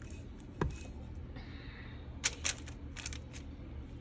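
Light clicks and taps of kitchen items being handled, about five in all, with a brief soft rustle in the middle.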